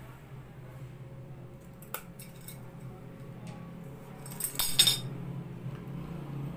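Small clicks and scrapes of a tester screwdriver working at the pins in an LED bulb's plastic base, with a louder burst of scraping clicks about four and a half seconds in, over a steady low hum.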